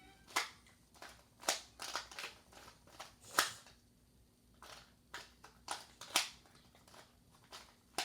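Plastic 2x2 Rubik's cube being twisted by hand: irregular sharp clacks of the layers turning, about one or two a second, with a short pause near the middle.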